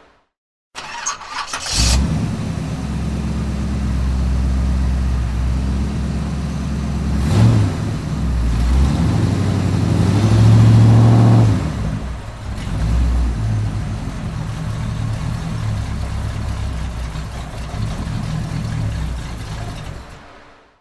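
A muscle car's engine cranks for about a second, catches and settles into a loud, lumpy idle. It is revved briefly about seven seconds in and held up for a longer rev from about ten to eleven and a half seconds, drops back to idle, and fades out near the end.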